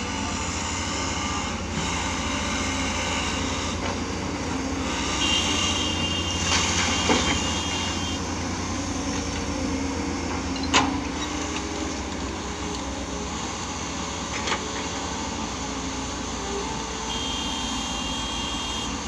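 Diesel engines of excavators and dump trucks running steadily while soil is loaded. A few sharp knocks break through the drone, the loudest about eleven seconds in, and a thin high whine comes and goes twice.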